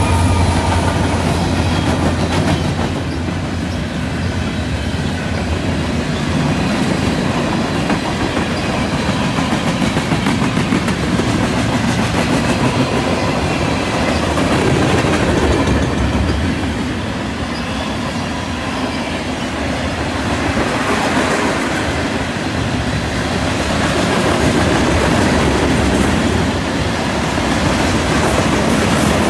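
CN freight train passing: the deep drone of the trailing diesel locomotives fades in the first few seconds. It gives way to the steady rolling clatter of tank cars and freight cars, their wheels clicking over the rail joints, the rush swelling and dipping as the cars go by.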